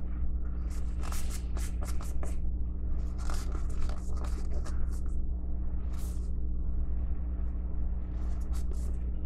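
Solvent-damp paper towel rubbed back and forth along a SOG Altair FX fixed blade in quick, hissy scrubbing strokes, wiping off a factory coating from the blade. A steady low hum runs underneath.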